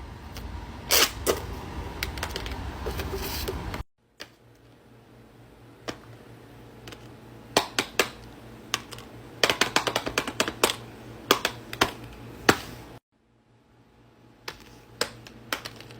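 Plastic fidget toys being clicked and popped by hand: sharp irregular clicks, with quick runs of clicks through the middle and two short breaks in the sound.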